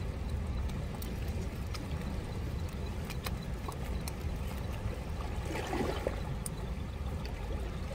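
Steady rush of river rapids, with a scatter of sharp clicks and a brief pitched sound about six seconds in.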